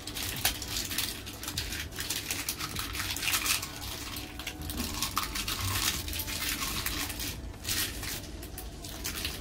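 Hands fitting an acrylic footboard onto an electric scooter's deck: irregular scratchy rustling and light plastic clattering as the board is handled and pressed down onto double-sided tape.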